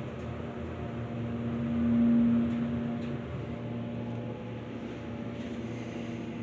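Schindler hydraulic elevator humming as it runs, a steady mechanical drone with a tone that swells to its loudest about two seconds in.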